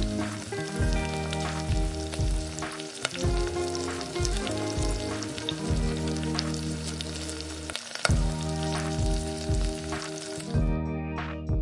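Chopped vegetables frying in oil in a miniature steel bowl, a steady sizzle with the clicks and scrapes of a small spoon stirring them; the sizzle cuts off about a second before the end. Background music plays throughout.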